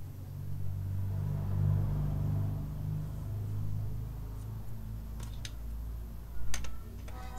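A low steady hum throughout, then a few sharp clicks about five and six and a half seconds in as a USB flash drive is handled and plugged into a car head unit's USB cable.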